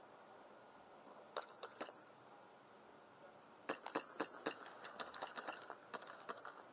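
Airsoft gunfire: sharp clicking pops, three single shots just over a second in, then a rapid, irregular flurry of shots for about two and a half seconds.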